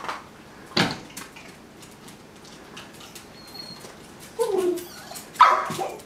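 A dog whines and yelps in short excited calls: a falling whine about four and a half seconds in, then a louder, sharper yelp. A sharp knock sounds under a second in.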